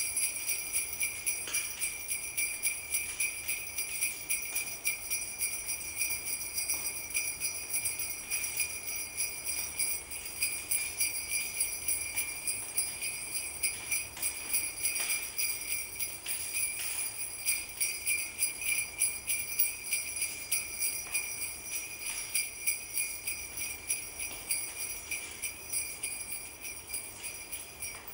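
Sleigh bells jingling, shaken in a fast, even rhythm. The sound starts and stops abruptly.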